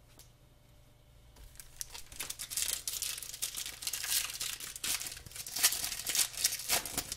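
A 2007-08 O-Pee-Chee hockey card pack's metallic foil wrapper being crinkled and torn open by hand. The crackling starts about a second and a half in and runs on as dense, sharp crinkles.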